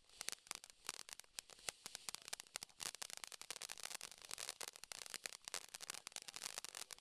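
Small firework crackling: a dense, irregular stream of small sharp pops and sizzling.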